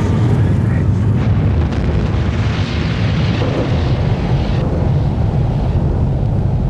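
Deep, continuous rumble of a large explosion's blast, as heard on nuclear test footage, with a hiss in the rumble through the middle.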